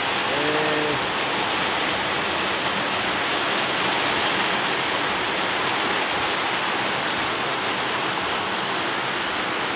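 Heavy rain pouring down in a torrential downpour, a loud steady hiss that cuts off suddenly at the end.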